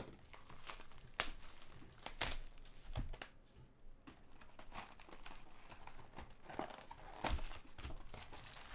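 Crinkling, tearing and rustling of a 2015 Topps Chrome baseball card hobby box being unwrapped and its cardboard lid opened, in irregular soft rustles and small clicks.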